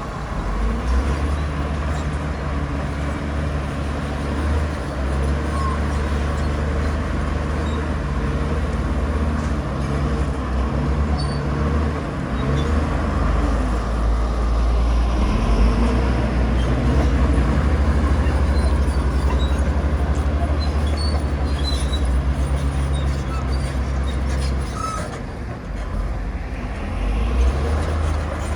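Heavy diesel earthmoving machinery running steadily: a deep, continuous engine drone that eases off briefly near the end.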